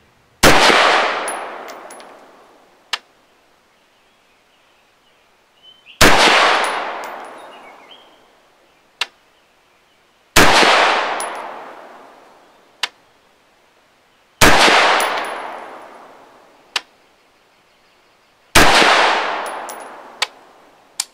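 Five rifle shots from a Smith & Wesson AR-15 firing 5.56 M855 ball, spaced about four seconds apart in slow aimed fire. Each shot rings out with a long echo tail of about two seconds, and a faint sharp tick follows roughly two seconds after each.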